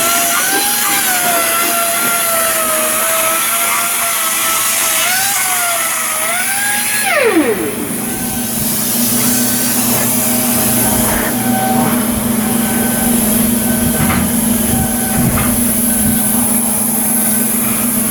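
Electric power tool running with a wavering whine. About seven seconds in it is switched off and winds down, the pitch falling steeply. A steady low hum follows, with a few knocks.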